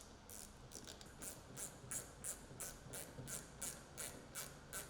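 Hand ratchet wrench clicking as it is swung back and forth to tighten screws, a quick even run of light clicks about three a second.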